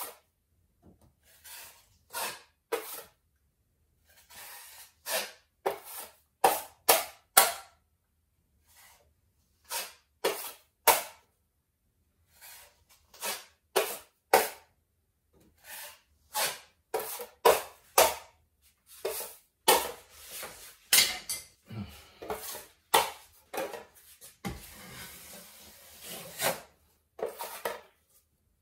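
Metal putty knife scraping wall filler against the edge of a stainless-steel mud pan in many short, irregular strokes, with a longer steady scrape near the end.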